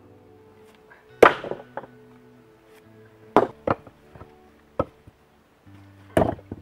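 Flat stones knocking against each other as a dry-stone wall is laid by hand: a handful of sharp clacks, the loudest about a second in, more in the middle and near the end. Quiet background music plays throughout.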